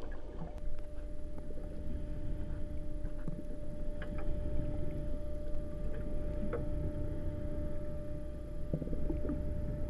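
Underwater sound: a steady low rumble and a steady hum from ship machinery carried through the water, with scattered clicks and bubbling from divers' exhaust bubbles.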